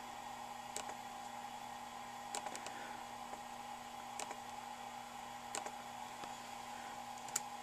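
Computer mouse clicking about six times, a second or two apart, while selecting graph options in software, over a faint steady hum.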